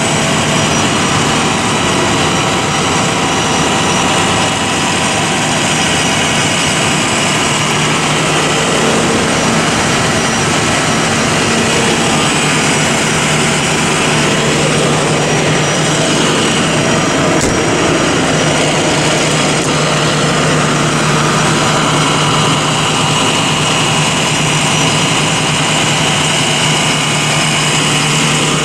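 A Ford F-450 ambulance's engine idling steadily, a constant hum with a hiss over it. There is a single short click about two-thirds of the way through.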